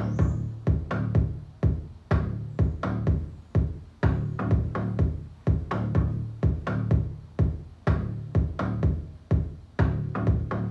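Electronic dance music with a steady drum-machine beat of about two thumps a second over deep bass, played back on a hi-fi loudspeaker system.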